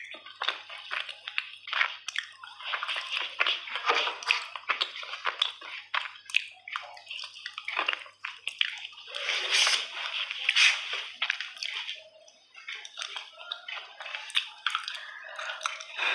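Fingers squishing and pulling apart soft, wet chunks of clay coated in a creamy paste: sticky, wet squelching with many small crackles, busiest about two-thirds of the way through.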